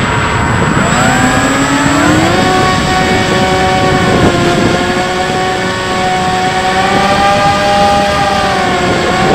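Bixler 3 RC plane's electric motor and propeller whining in flight, heard from the plane's onboard camera with wind rushing over it. The whine rises in pitch about a second in, holds steady, then dips briefly near the end as the throttle is worked on the landing approach.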